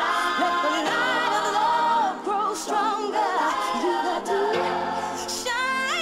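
Background music: a song with sung vocals gliding over sustained held chords.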